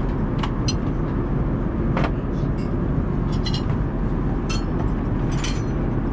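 Steady low rumble of an Airbus A380 cabin in cruise, with a few light clicks and clinks scattered through it.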